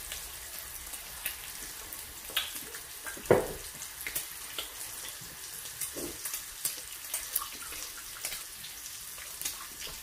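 Meat sizzling on an electric tabletop grill plate: a steady hiss with scattered pops and crackles of fat, and a louder knock about three seconds in.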